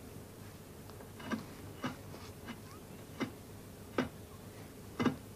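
A handful of faint, sharp clicks and knocks, about five spread irregularly over a few seconds, above a low steady hiss.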